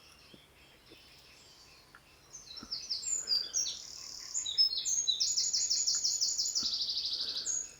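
Woodland birds singing: quick high chirps and rapidly repeated notes from about two seconds in, with a fast trill near the end.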